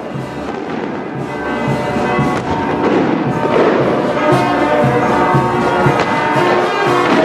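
Brass band music playing, with a steady beat, while daytime fireworks burst overhead in several sharp bangs.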